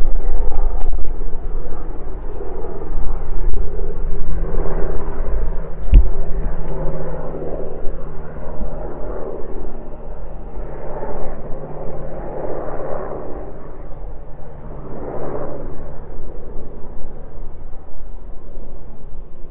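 Steady low vehicle engine hum under a rumbling outdoor noise that swells and fades every few seconds, with one sharp click about six seconds in.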